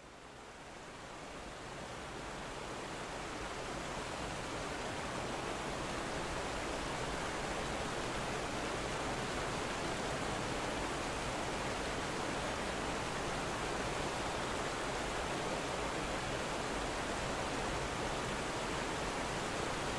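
Water rushing steadily over a small concrete spillway at a sewage outfall into a river, fading in over the first couple of seconds.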